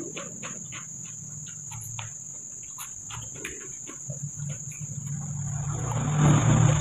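A cricket trilling steadily on one high note, with many soft clicks from food being handled on a banana leaf.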